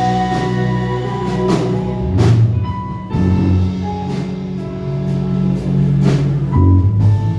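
Live worship band music with drums: held bass notes and sustained chords, with a few sharp drum or cymbal hits.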